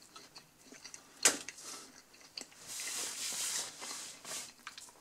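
Close-up mouth sounds of a person chewing soft pan-pizza crust, with one sharp click about a second in. A soft hiss runs for about two seconds in the middle.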